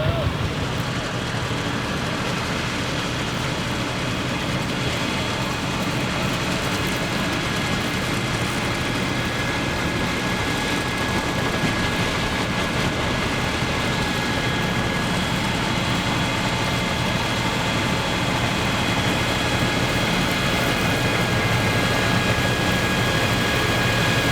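Deutz F3L514 air-cooled three-cylinder diesel tractor and a Claas Super pull-type combine running steadily together, a continuous mechanical noise. A thin, high, steady whine comes in after about six seconds.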